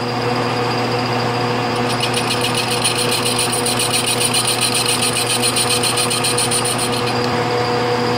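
Metal lathe running, its tool squaring the end of a warped metal pipe. From about two seconds in there is a rapid, even ticking, several times a second, which stops about a second before the end. This is an interrupted cut, the tool meeting the out-of-true pipe end only part of each turn, so the faced surface is not yet continuous.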